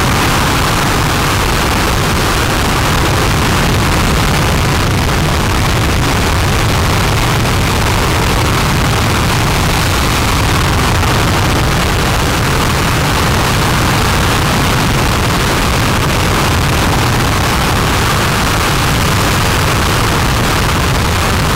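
RS-25 liquid-hydrogen, liquid-oxygen rocket engine firing in a static hot-fire test: a loud, steady rushing noise that holds an even level.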